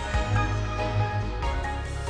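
Background music for a TV channel ident: sustained pitched notes over a deep, pulsing bass.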